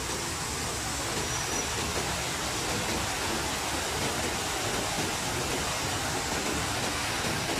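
Water from a cascade fountain sheeting down stone walls into a shallow channel: a steady rushing splash, with a low hum of city traffic beneath it.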